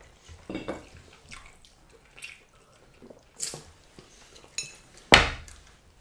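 Eating sounds: fingers pulling apart fish soaked in pepper soup and mouth noises as it is eaten, heard as scattered short wet sounds, with one louder one about five seconds in.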